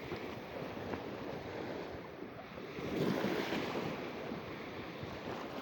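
Small waves of a calm sea washing onto the shore, with wind on the microphone; a slightly bigger wash swells up about three seconds in.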